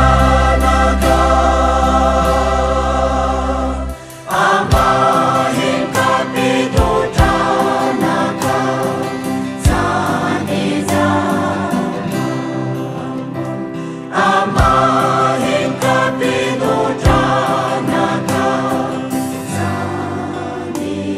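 Mixed church choir of women's and men's voices singing a hymn in harmony over backing music. A long held chord with a deep bass note breaks off about four seconds in, and a new phrase starts with a steady beat of percussive strokes.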